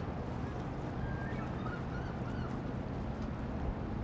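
Steady low outdoor rumble, with a few faint, short high bird calls between about one and two and a half seconds in.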